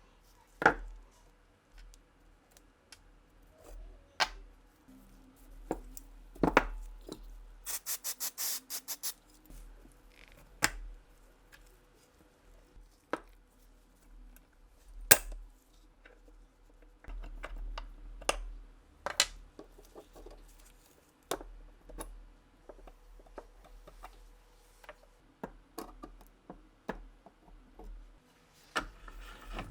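Workshop handling of small metal parts: scattered sharp clicks and clinks of tools and parts, with a quick run of about ten even clicks around eight seconds in.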